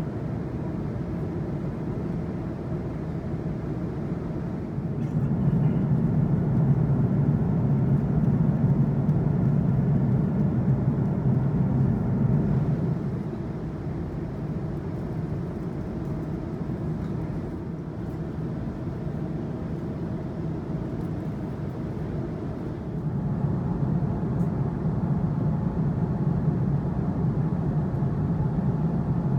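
Steady cabin noise of an Airbus A330-300 in cruise: an even, low rumble of airflow and engines with no distinct tones. It gets louder about five seconds in, eases off again around thirteen seconds, and rises once more a little after twenty seconds.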